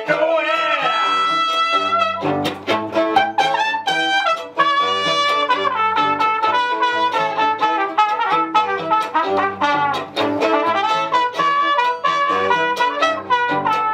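A live acoustic band playing an instrumental passage: a trumpet carries the melody over a plucked cello bass line, with a steady quick beat.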